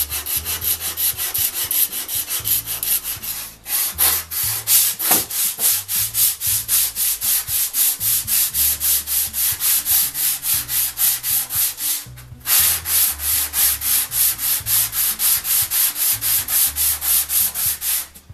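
Coarse emery paper stapled to a wooden board, scrubbed back and forth along a rusty steel buck saw blade to clean off the rust, at about five strokes a second. The scrubbing breaks off briefly about three and a half seconds in and again around twelve seconds.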